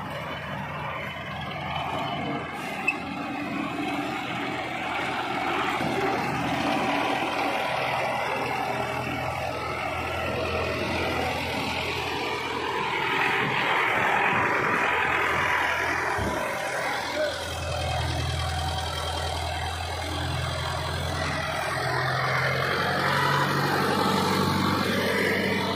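Farm tractor's diesel engine running steadily under load while working a tipping trolley, its note shifting several times, with a deeper, stronger drone from about two-thirds of the way through. A single short, sharp knock comes about three seconds in.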